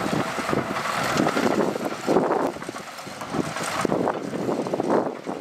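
Diesel construction machinery running, with wind gusting on the microphone.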